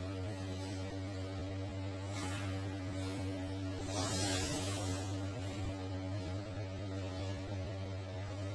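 Steady low hum with a buzzy stack of overtones, unchanging throughout, with brief hissy swells about two and four seconds in.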